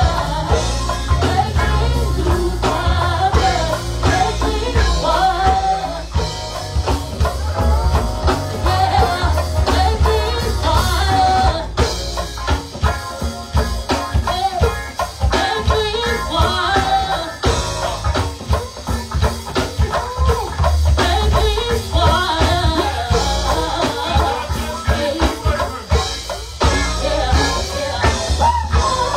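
Live go-go band playing: a singer on microphone over electric guitar, congas, drum kit and keyboard, with a strong bass under a steady percussion groove.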